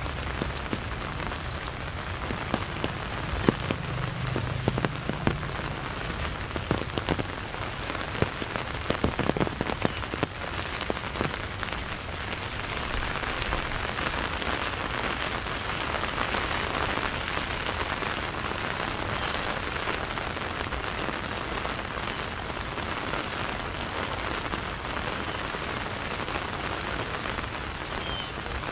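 Steady rain falling and pattering on surfaces, with a cluster of close, sharp drop impacts in the first ten seconds or so.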